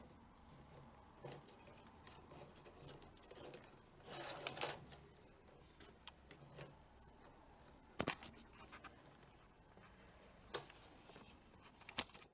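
Hands working a leather tabla strap (badhi) through the drum's lacing: scattered rubbing and scuffing, with a louder rubbing patch about four seconds in and a few sharp knocks near eight, ten and twelve seconds in.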